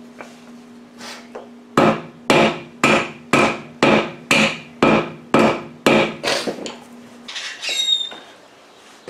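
Hammer blows on a car wheel and tyre, about eleven evenly spaced strikes at roughly two a second, knocking the stuck old TPMS sensor loose. A short metallic ring follows near the end.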